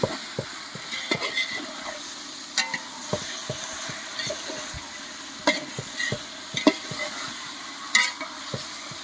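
Food sizzling as it fries in a cooking pot while a spoon stirs it, knocking and scraping irregularly against the pot.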